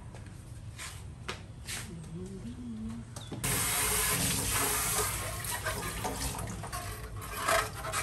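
A kitchen tap turned on suddenly about three and a half seconds in, water running steadily from the tap onto a plastic container being rinsed in the sink. Before it, only faint light clicks.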